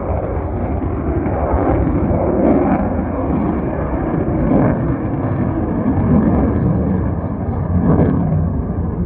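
F-35 fighter jet's engine roar: a loud, rough rumble that swells and eases slightly every second or two.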